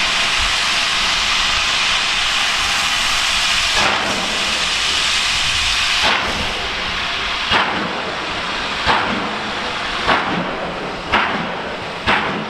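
GWR Castle class steam locomotive 'Nunney Castle' starting away. A loud steady hiss of steam is followed, from about four seconds in, by exhaust beats that come gradually faster.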